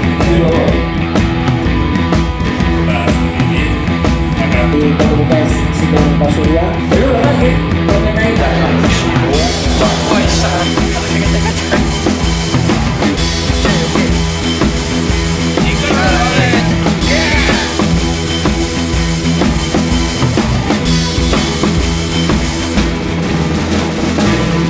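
Rock background music with a drum kit beat; the band gets fuller, with more cymbal brightness, from about nine seconds in.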